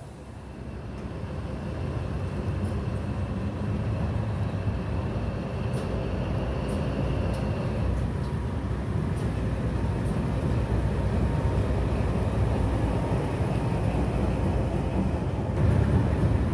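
A DE 520 diesel-electric locomotive and its carriages running by, a deep diesel rumble that builds over the first few seconds and then holds steady. A faint high whine sounds through the first half, and a few light clicks come around the middle.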